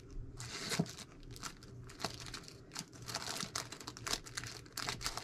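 Irregular crinkling and rustling from rummaging through a box of rickrack trim.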